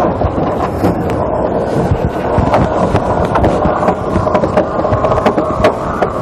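Wind buffeting the microphone and water rushing along the hull of a MOD70 racing trimaran under sail, with many sharp clicks from a deck winch being ground by the crew.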